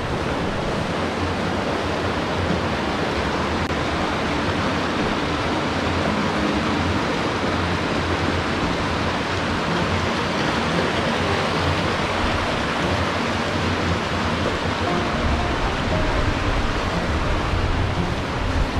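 Steady rush of water from a river running through a rocky canyon, an even, unbroken noise.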